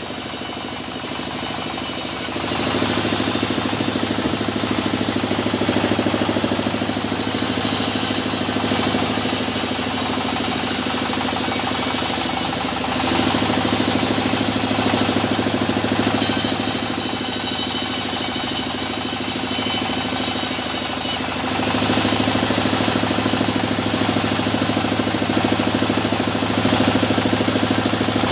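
Engine-driven sawmill running steadily while sawing small mahogany logs. The machine's steady drone shifts in pitch and loudness a few times.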